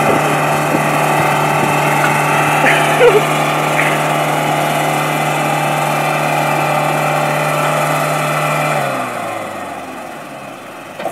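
SUV engines held at high, steady revs while straining against each other in a tow-rope tug of war. The revs drop about nine seconds in, and the engine sound falls away as the pull ends.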